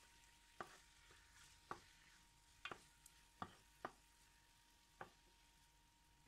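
Wooden spatula knocking and scraping against a non-stick frying pan while turning pieces of chicken frying in oil: about six short taps spread out, over a faint sizzle.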